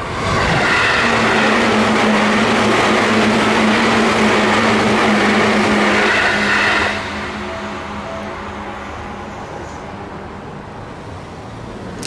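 A yellow Seibu electric commuter train passes close by through a level crossing, wheels rumbling on the rails under a steady motor hum. The loud pass lasts about seven seconds and ends abruptly. The crossing bell then rings on more faintly.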